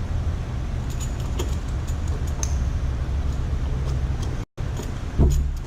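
Light metallic clicks and clinks of differential gears and a cross pin being handled and turned, over a steady low hum. The sound cuts out completely for an instant about four and a half seconds in.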